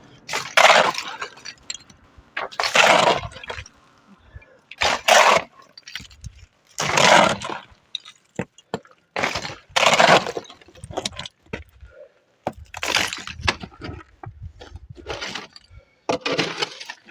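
A shovel scraping into and scooping a pile of broken masonry rubble and damp mud, about eight rasping strokes roughly every two to three seconds.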